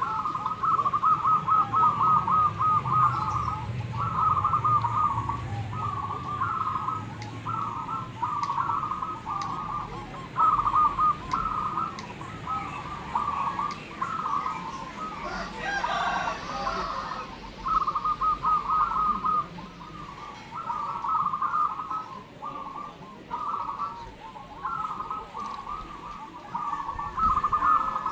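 Many zebra doves (perkutut) cooing, their short rolling phrases repeating and overlapping at about the same pitch. About halfway through, a different, longer call, like a rooster's crow, cuts in over them.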